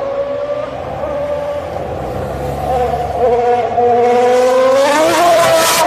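A performance car being driven hard, with a steady high-pitched engine or tyre note. About five seconds in the pitch rises, and a loud rush of noise builds up near the end.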